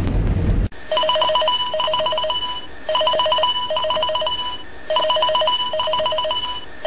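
Mobile phone ringtone: a short electronic beeping tune of rapid notes, repeating about every two seconds. Under a second in, a low rumble cuts off abruptly just before the ringing starts.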